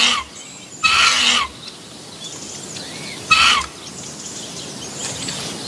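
Vulture chick begging for food at the nest: short harsh, rasping calls, one at the start, one about a second in and one just after three seconds, over a steady background hiss.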